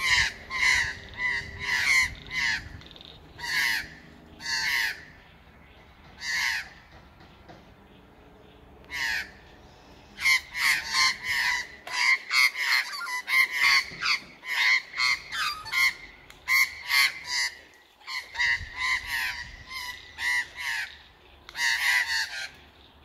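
Australian magpies giving repeated short, harsh alarm calls in quick runs as they mob a plastic owl decoy. There is a lull about five seconds in, and the calling then grows densest over the middle stretch.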